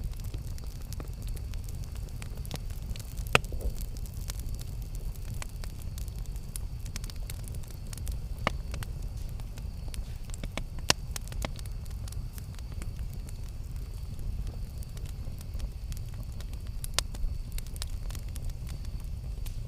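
Campfire burning: a steady low rumble with scattered sharp crackles and pops, the sharpest about three seconds in, around the middle, and near the end.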